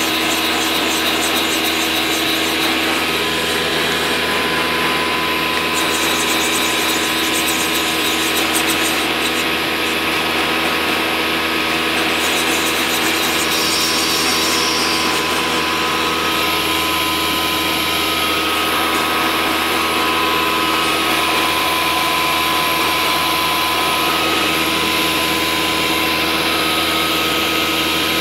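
Steady whirring running noise from a CNC wood router, with a few thin steady whines over it, while its head is jogged into position to set the workpiece origin.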